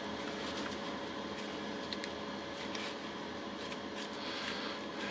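Steady low background hum with a few faint light clicks, like parts of a power tool being handled.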